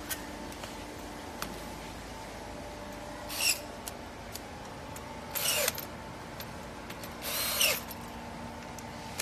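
Cordless drill driving screws into a rattan patio chair's steel frame: three short whirring bursts about two seconds apart, each under a second long, with light clicks of handling between them.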